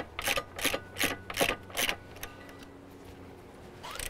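Socket ratchet wrench clicking in quick, even strokes, about three a second, as it spins the propeller nut off a Mercury outboard's prop shaft; it stops about halfway through.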